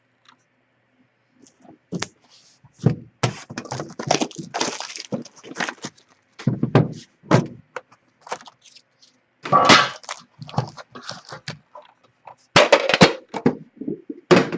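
Card tin being unwrapped and opened by hand: a run of sharp clicks, knocks and crackles, with a louder cluster about ten seconds in and another near the end.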